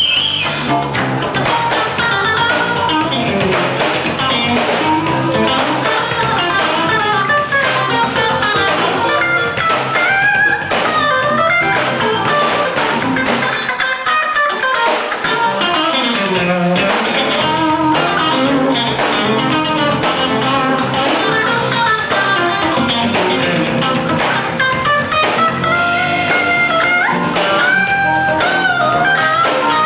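Live blues-rock band playing an instrumental break: an electric guitar solo with bent notes over bass and drums.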